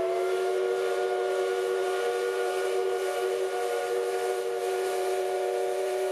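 Whistle of a Tobu Railway C11 steam locomotive blowing one long, steady blast: a chord of several tones sounding together.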